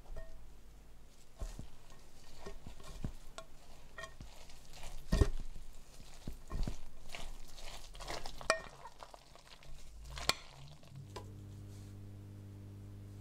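A spoon stirring a wet mixture of grated zucchini, sweet potato, eggs and flour in a glass bowl, with irregular knocks and clicks as the spoon hits the bowl. Near the end the stirring stops and a steady low hum takes over.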